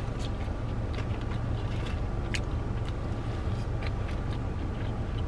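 Car engine running, a steady low hum heard from inside the cabin, with a few faint scattered clicks.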